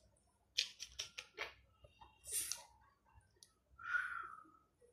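Light clicks and rustles from a hand handling the recording device, with a short hiss about two and a half seconds in and a brief falling tone near the end.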